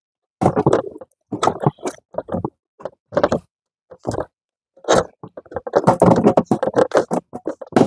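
Ribbed corrugated plastic hose being pulled up through a hole in the floor, its ribs scraping and crackling against the cut edge in short, uneven strokes that come fast and close together over the last few seconds.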